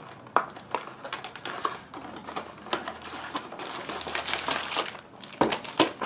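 Cardboard and paper packaging being handled and pulled apart: irregular sharp taps and clicks with rustling and scraping, and two louder knocks near the end.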